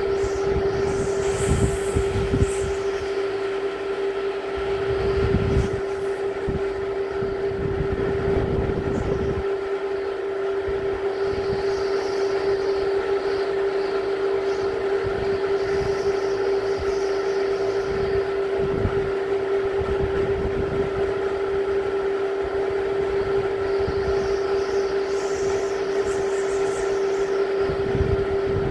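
Typhoon wind gusting, with irregular low rumbles of wind buffeting the microphone. Under it runs a steady tone held at one pitch.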